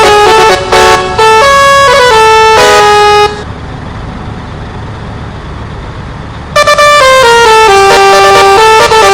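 A truck's telolet musical air horn playing a loud tune of held notes that step up and down. It stops about three seconds in, leaving a lower steady noise for about three seconds, then starts another run of notes.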